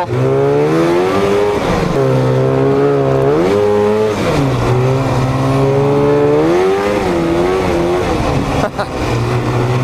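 1995 Polaris Indy Trail 500 snowmobile's two-stroke engine running under way, its pitch climbing and dropping several times as the throttle is worked, then holding steadier near the end.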